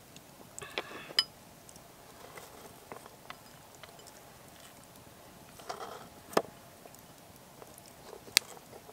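Hands preparing food: scattered sharp clicks and taps of a spoon and knife against a ceramic bowl and wooden cutting board, with light rustling as shredded red cabbage is dropped into the bowl. The sharpest taps come about a second in, around six seconds in and near the end.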